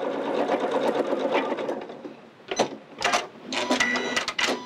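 Elna 770 computerised sewing machine topstitching steadily for about two seconds, then stopping. It is followed by a few short mechanical clicks and whirs.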